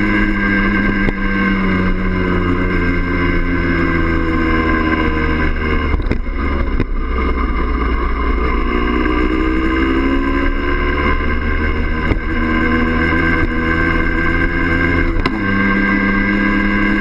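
Yamaha DT50M's 50 cc two-stroke single-cylinder engine running under way, heard from the bike itself. The revs dip and waver near the middle, then climb steadily and drop suddenly about fifteen seconds in.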